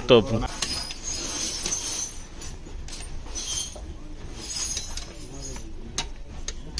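A few sharp, separate metallic clinks and taps, as of tools and metal engine parts being handled and set down, spaced a second or more apart.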